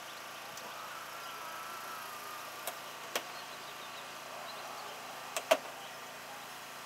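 A hydraulic rescue tool works a car door over the steady hum of an engine. Several sharp cracks and snaps come as the door's metal and trim give way, the loudest about five and a half seconds in.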